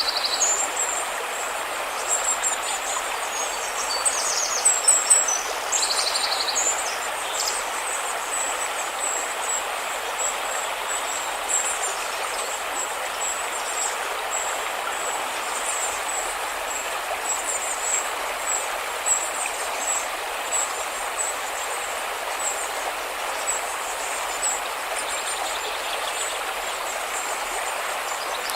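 River water rushing steadily, with small birds chirping high above it, most busily in the first few seconds.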